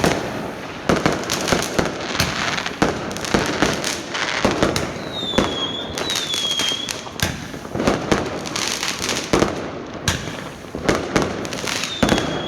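Fireworks going off in a dense, continuous run of bangs over a steady crackle. A few short falling whistles are heard, two of them about halfway through and one near the end.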